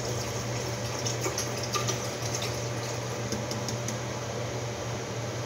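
Water poured from a plastic bottle into a stainless-steel kettle, splashing steadily as the kettle fills, over a steady low hum.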